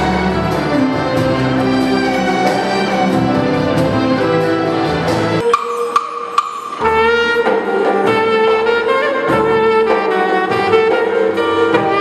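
Live ensemble music: a clarinet plays the lead over a string section, piano and drums. About five and a half seconds in, the lower instruments drop out for a moment, leaving one held high note, then the full band comes back in.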